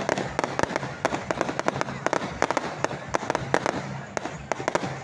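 Fireworks going off in rapid, irregular succession: a dense run of sharp cracks and pops, several a second.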